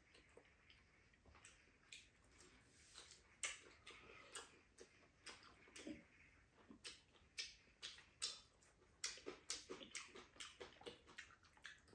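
Faint eating sounds at a table: irregular small clicks and taps of metal chopsticks and spoons against bowls and plastic food containers, several a second.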